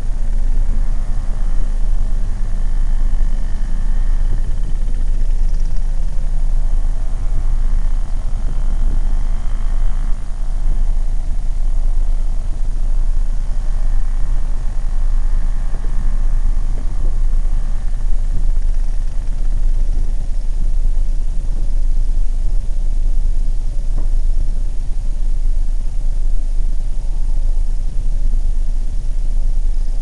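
A steady low rumble, with the faint falling tones of outdoor warning sirens winding down in the first few seconds.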